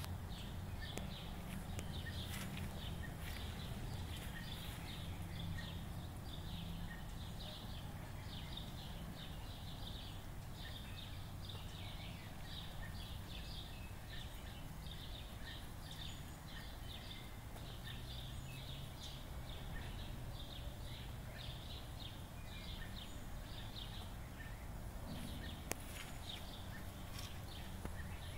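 Small birds chirping in rapid, repeated short notes, over a faint steady low hum.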